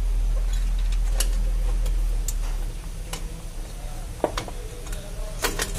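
Light metal clicks and clinks now and then, as tools and brake parts are handled during brake pad work, over a low steady hum that drops away about two and a half seconds in.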